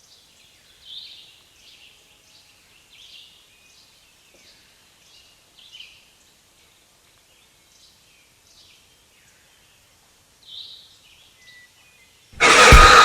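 Faint bird chirps now and then, then about twelve seconds in a sudden, very loud jumpscare sound effect: a harsh blast that cuts in and keeps going.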